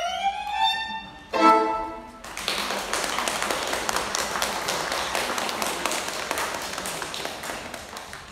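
Violin and accordion ending a piece: the violin slides upward, then a short loud final chord comes about a second and a half in. Audience applause follows and fades away near the end.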